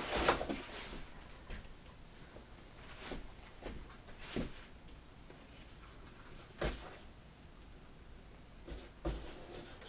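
Light handling noise of rifle accessories and packaging being taken from a cardboard box: scattered short knocks, clicks and rustles over a quiet room, with one sharper knock about two-thirds of the way through.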